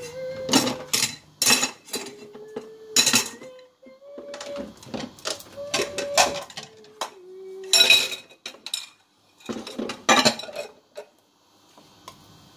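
Pots, pans and utensils clattering and clinking in a string of sharp knocks while someone hums a tune.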